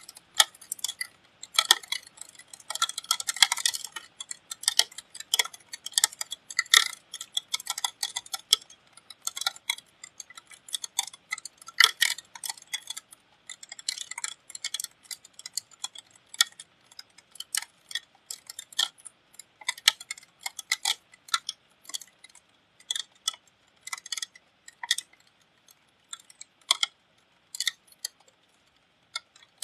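Raindrops striking a window air conditioner's casing right by the microphone, making irregular sharp ticks several a second, with a dense flurry about two to four seconds in and thinning toward the end.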